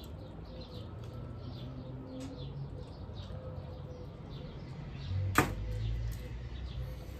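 Small birds chirping repeatedly over a low steady hum; about five and a half seconds in, a single sharp knock, as of something set down on a table.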